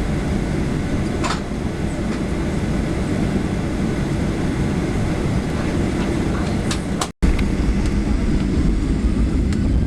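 Steady rumble of a Boeing 737-800's engines and airframe heard inside the passenger cabin. It cuts out for an instant about seven seconds in and comes back louder and deeper.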